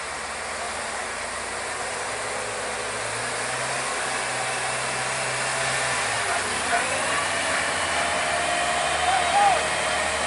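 Heavy diesel truck engines running hard under load, a steady dense noise that slowly grows louder, as a stuck truck is towed up a steep climb.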